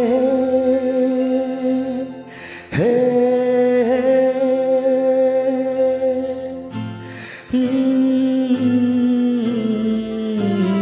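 Slow instrumental song introduction: a melody of long held notes over accompaniment, with new notes starting about three and seven and a half seconds in.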